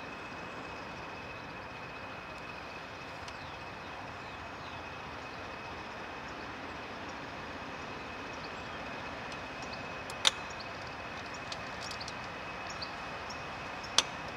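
Diesel locomotive running at a distance, a steady rumbling noise with a constant high-pitched whine over it. Two sharp clicks stand out, about ten seconds in and near the end.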